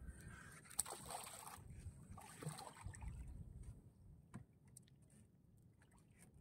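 Faint sounds of water lapping and sloshing against a small outrigger canoe's hull, under a low rumble, with a few clicks and rustles of fishing line being handled; the sharpest click comes about a second in.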